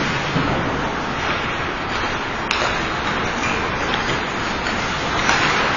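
Steady rushing background noise of an ice-hockey rink during play, picked up by an overhead rink camera, with two sharp clicks about two and a half and five seconds in.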